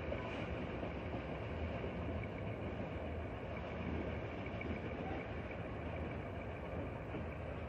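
Freight train wagons rolling slowly along the track: a steady low rumble with a faint high steady tone above it.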